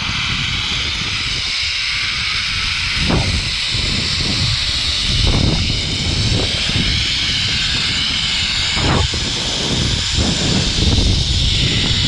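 Zip line trolley pulleys running along the steel cable with a steady high hissing whir, over irregular low rushes of wind buffeting the microphone as the rider travels at speed.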